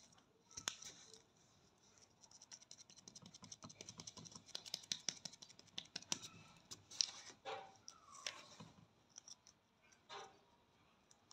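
Fingertips rubbing a ready-to-use wax strip down onto the skin of the armpit: a faint, rapid scratching, densest in the middle stretch and thinning out toward the end.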